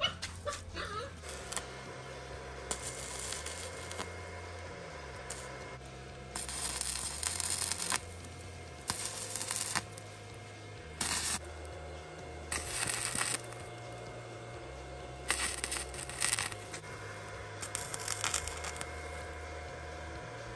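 Stick (arc) welder crackling in short bursts of one to two seconds, about seven times, as the seam where the new apron meets the old frame rail is tack-welded.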